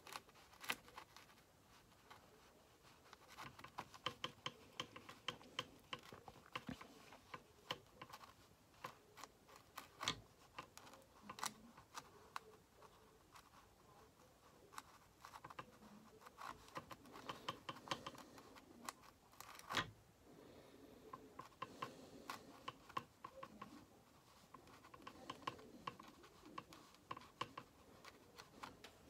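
Faint scratching and small irregular clicks of a watercolour brush dabbing and stroking paint onto paper, with a few louder clicks now and then.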